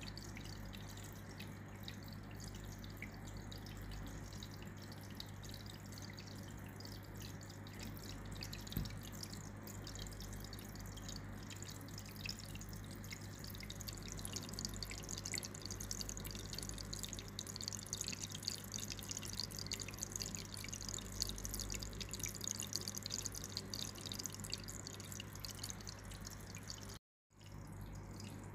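Aquarium water bubbling and dripping: a busy patter of tiny splashes over a steady low hum. It cuts out briefly near the end.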